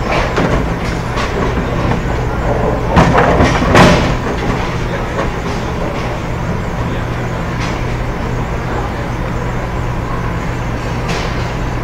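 Bowling alley lane noise: a steady rumble of balls rolling and pinsetter machinery with a constant hum. A louder clatter comes about three to four seconds in.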